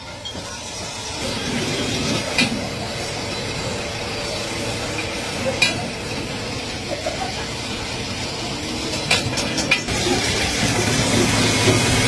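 Steady workshop machine noise with a few sharp metallic clinks of cast metal pan handles being handled. About ten seconds in a drill press takes over, louder and steadier, boring through the metal rim of a large pan.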